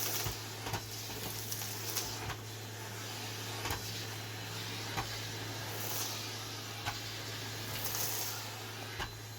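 Household tidying: scattered clicks and knocks of things being picked up and set down, with a few short rustles, over a steady low hum.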